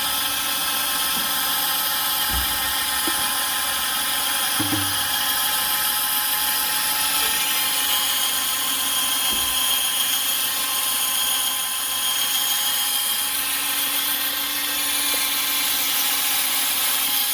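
Durofix 8V low-speed cordless screwdriver running steadily, spinning a sponge pad loaded with restorer compound against a fogged plastic motorcycle headlight lens to buff it clear; a continuous motor whine with the rub of the pad.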